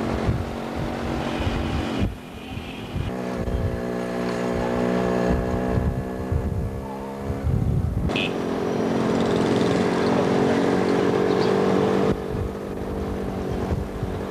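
Several motorcycle and scooter engines running as a group rides slowly along a street, with street noise. The sound changes abruptly a few times: about 2, 8 and 12 seconds in.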